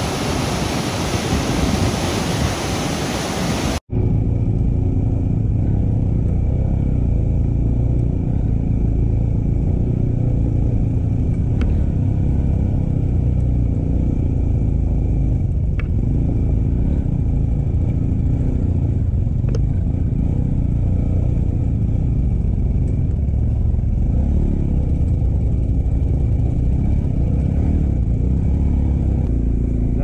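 Loud rushing noise for about four seconds, cut off abruptly. Then a motorcycle engine runs steadily with a deep low rumble as the bike is ridden, with a few faint ticks.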